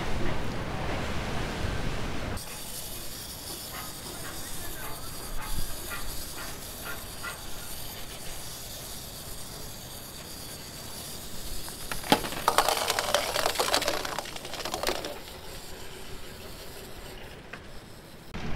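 Clockwork of small plastic wind-up Minion toys clicking and whirring as they walk over wooden boards, louder for a few seconds in the middle. The first two seconds are wind on the microphone.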